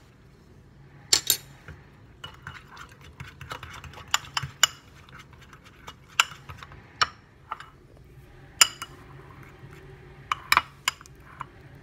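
Metal fork stirring thick banana and peanut-butter batter in a glass bowl. Irregular sharp clinks of the fork against the glass stand out over soft scraping and squelching.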